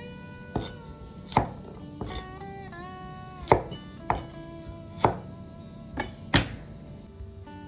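About eight sharp knife chops on a cutting board, spaced unevenly about a second apart, over background slide-guitar music.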